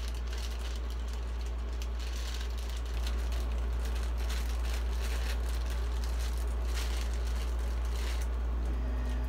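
Small plastic bag of screws crinkling and rattling in the hands, in short scattered rustles, over a steady low hum.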